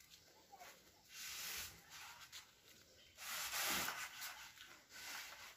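Blade cutting through a polystyrene foam sheet: two scraping strokes, a short one about a second in and a longer one about three seconds in.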